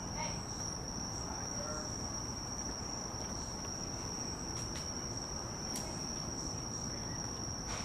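Steady chorus of night insects: one unbroken high, shrill tone over a low background hiss, with a few faint ticks in the second half.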